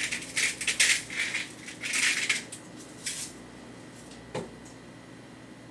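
Hand-twisted spice mill grinding seasoning: a quick run of crunchy grinding strokes over about three seconds. A single sharp knock follows about four seconds in.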